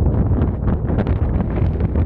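Strong wind buffeting the microphone: a loud, unbroken low rumble with irregular crackles.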